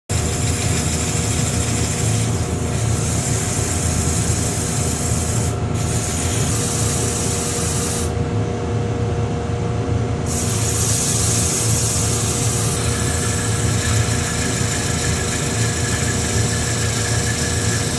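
Wood lathe running steadily with a few constant motor tones, under a dense hiss of sandpaper rubbing on the spinning workpiece that rises and falls as the pressure changes.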